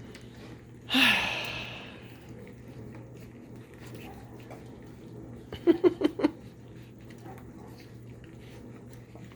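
Labrador retriever puppies at a bowl of soaked food. About a second in there is a loud, noisy puff that fades over about a second. Past the middle comes a quick run of about five short, squeaky pitched grunts, all over a steady low hum.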